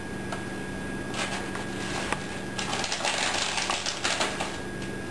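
Grated Parmesan being shaken from a shaker can onto a lasagna: a rapid, rattling patter that starts about a second in and stops near the end.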